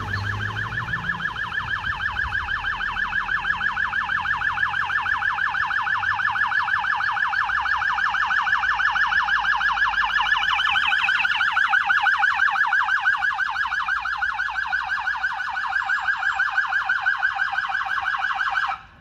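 Electronic police siren in a fast yelp, its pitch sweeping up and down rapidly and evenly, over and over; it cuts off abruptly near the end.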